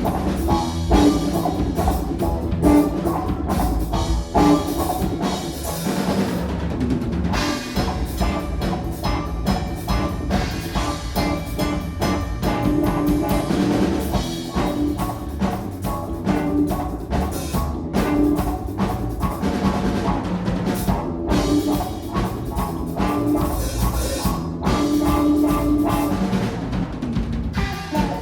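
A live rock trio of electric guitar, bass guitar and drum kit playing an instrumental jam, with the drums prominent.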